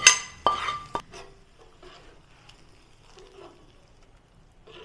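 Hot tadka of ghee, butter, spices and onion tipped from the pan into the cooked dal makhani: a sudden loud sizzle-splash that dies away within about a second. After it come only faint soft squelches from the thick dal.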